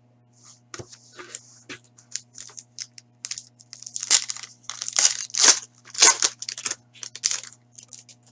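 Foil trading-card pack being torn open and crinkled by hand: an irregular run of sharp crackling rustles, loudest and densest in the middle stretch.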